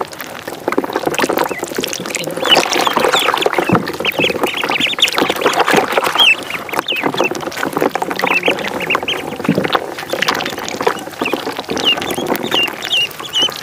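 A group of ducklings peeping together: a dense run of short, high cheeps that overlap one another and grow busier about two and a half seconds in.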